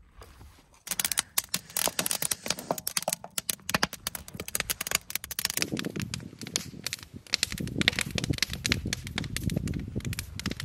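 Food frying in a skillet on a wood-fired stove: a dense, continuous sizzle of crackles and pops starting about a second in, with a lower rumble joining about six seconds in.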